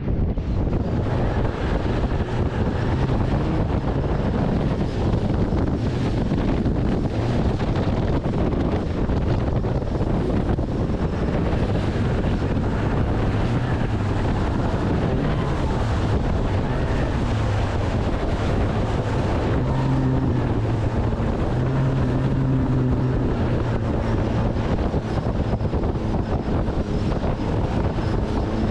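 Strong wind buffeting the microphone on a motorboat heading into the wind over choppy lake water, with the low, steady hum of the boat's motor underneath, clearest about two-thirds of the way in.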